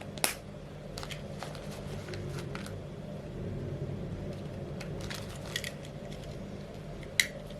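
A few sharp clicks or clinks, two of them loud (just after the start and near the end), over a steady low hum.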